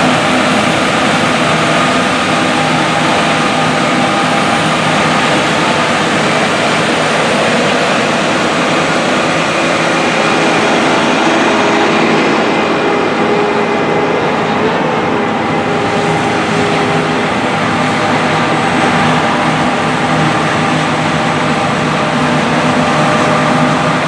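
John Deere S790 combine harvester running steadily under load while harvesting wheat: an even engine drone with the rushing noise of the threshing machinery.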